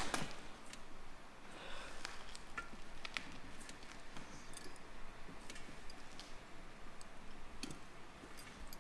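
Valve stem tool being cranked to pull a TPMS sensor's rubber valve stem through the wheel's valve hole: scattered light clicks and ticks at irregular intervals.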